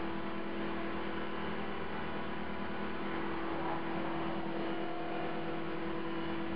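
CopterX 450 SE V2 electric RC helicopter running at a steady speed with a buzzing hum over a hiss, after a crash, with its main blades out of track. The owner guesses the blades are bent, and hopes the blade holder or feathering shaft is not.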